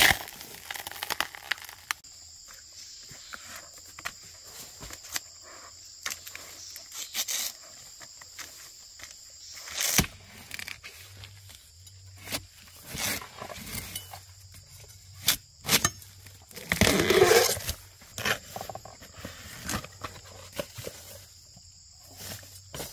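Knife strikes and hacking at the base of wild bamboo shoots, with rustling through grass and dry leaves and a few sharp knocks, over a steady high insect drone. About three-quarters of the way through comes one louder, drawn-out sound lasting about a second that bends in pitch.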